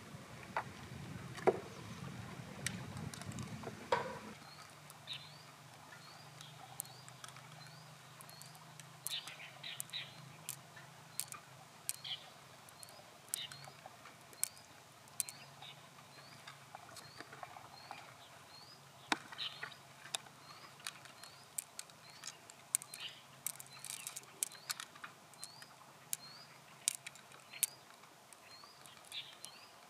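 Gloved fingers working pearls out of the flesh of an opened freshwater mussel: scattered small wet clicks and squelches. Over the first four seconds a low rumble sits under a few sharper knocks, then drops away.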